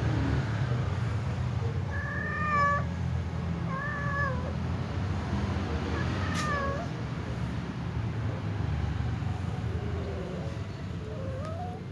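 Domestic cat giving several drawn-out meows a couple of seconds apart, the last one rising in pitch: calling at another cat in a face-off.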